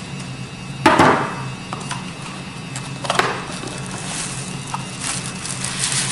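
Unboxing handling noises: two sharp knocks of hard items on a wooden tabletop, the first about a second in and the loudest, with a few small clicks and a steady low hum. Near the end comes rustling as a soft plastic sleeve is pulled off the router.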